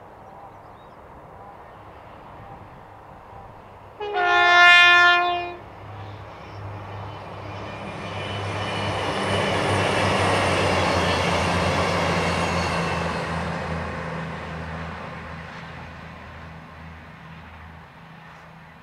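CrossCountry Voyager diesel multiple unit sounds its horn once, a loud blast of about a second and a half, then runs past: its engine and wheel noise swell to a peak about ten seconds in and fade away as it recedes.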